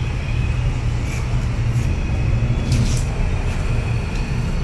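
Steady low hum throughout, with a few faint, irregular light clicks and rustles as fabric is handled and set under the presser foot of a sewing machine.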